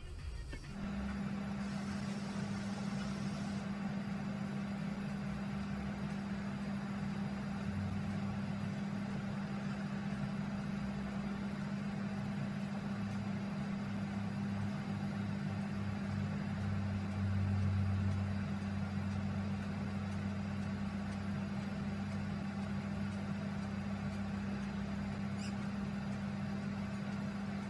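A steady low hum over a constant hiss, with a brief swell of deeper rumble about seventeen seconds in.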